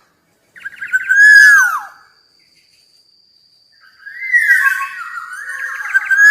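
Black-naped oriole calling: a loud phrase of whistled notes sliding downward, about a second in, then a pause and another, longer phrase starting around four seconds in.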